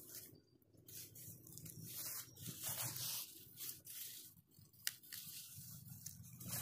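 Leafy rustling and rubbing as a hand pushes through and handles vegetable fern (pako) fronds, in irregular bursts with one sharp click about five seconds in.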